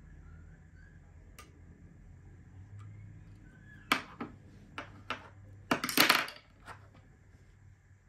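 Metal lock-picking tools being put down on and picked up from a wooden desk: a few light clinks past the middle, then a short, louder clatter.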